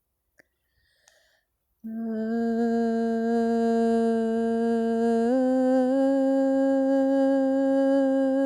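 A woman's sustained vocal toning: after a pause of nearly two seconds, one long steady note begins, then steps up a little in pitch about five seconds in and is held.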